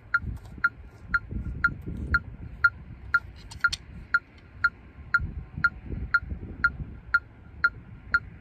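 Metronome clicking steadily at about two clicks a second, with a low rumble underneath.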